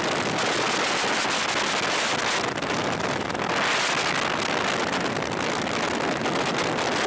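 Steady rush of wind across a motorcycle rider's microphone at speed, with no engine note standing out.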